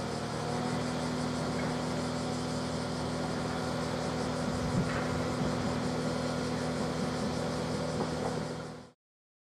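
Steady idling hum of a train standing at the station, with a light knock about five seconds in. The sound cuts off abruptly near the end.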